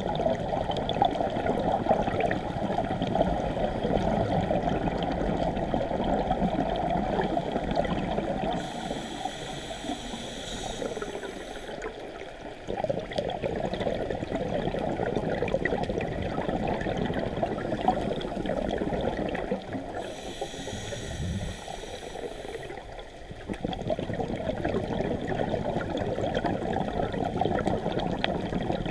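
Scuba diver breathing through a regulator underwater: long stretches of bubbling exhalation, broken twice by a few seconds of hissing inhalation, about nine and about twenty seconds in.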